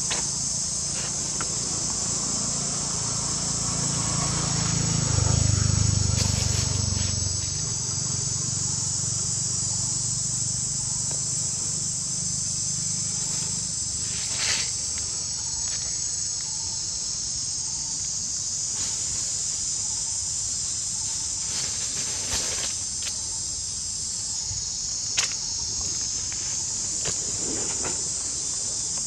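Steady, high-pitched insect chorus. In the first half a low rumble joins it, loudest about five seconds in and fading out about halfway through, and a few short clicks come later.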